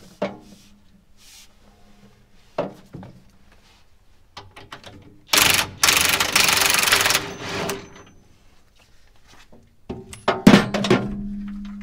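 DeWalt impact wrench hammering on a generator mounting bolt for about two and a half seconds in the middle, with a few light metal knocks before it. Near the end, a sharp metal clank leaves a steady ringing tone.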